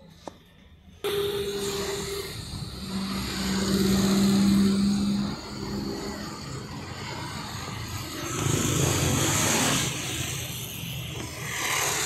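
Outdoor unit of a Bestlife split air conditioner running: a steady electrical hum with a tone and its octave over fan and outdoor noise. It starts abruptly about a second in. A broader rush of noise swells louder for a couple of seconds past the middle.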